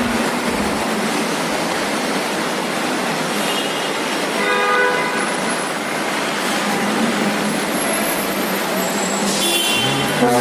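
Steady rushing truck noise with a few short horn toots about a third of the way in and again near the end.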